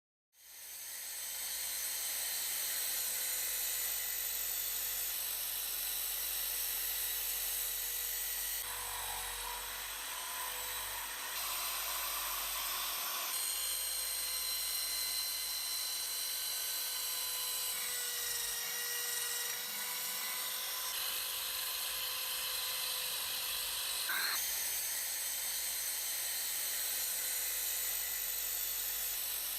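Small high-speed rotary tool running steadily with a high whine. Its sound shifts abruptly several times, as if the tool is pressed onto different work or the footage is cut between takes.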